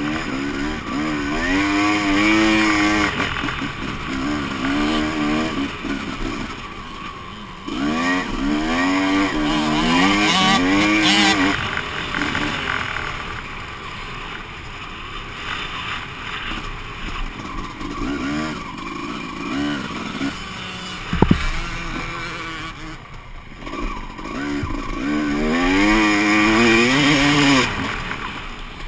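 Honda CR250 two-stroke motocross engine under hard riding, its pitch rising and falling in repeated surges as the throttle opens and closes, loudest in three stretches. A single sharp knock comes about two-thirds of the way through.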